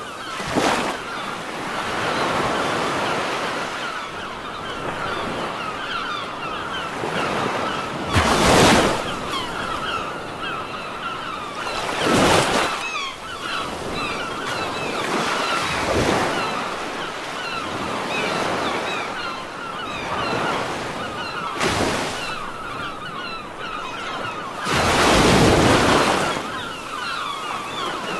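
Surf washing ashore, a steady rush of water with five louder surges as waves break every few seconds.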